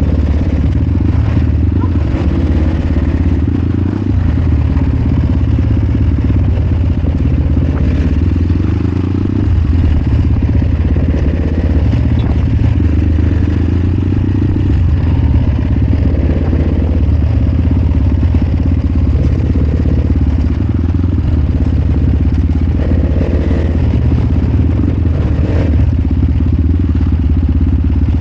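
Supermoto motorcycle running steadily while being ridden, with a heavy low rumble throughout.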